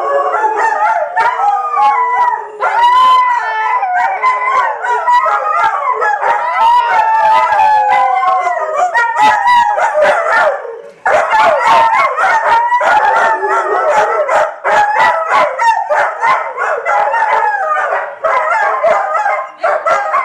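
Three dogs howling together in a chorus, several wavering howls overlapping at once, with short barks and yips mixed in. The chorus breaks off briefly about halfway through and picks up again.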